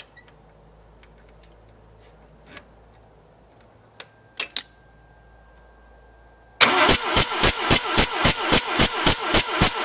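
Mazda 13B rotary engine of a 1985 RX-7 cranked over on the starter with a spark plug out for a spark check. It sets in suddenly about two-thirds of the way in as an even, rhythmic chug of about four pulses a second. It is preceded by a few small clicks and a faint steady high tone.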